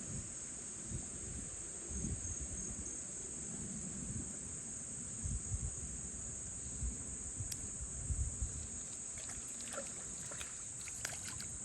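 Steady high-pitched insect chorus, with irregular low rumbles underneath and a few faint clicks near the end.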